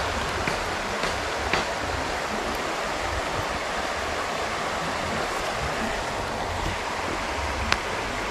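Shallow river running over rocks: a steady rushing hiss of flowing water, with a few light clicks, the sharpest one near the end.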